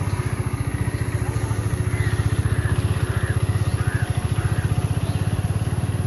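A small engine idling steadily with a rapid, even putter.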